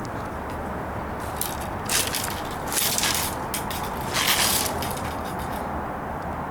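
Footsteps crunching and scraping over fallen branches and storm debris: several short crunches in the middle stretch, the loudest about four seconds in, over a steady low background rush.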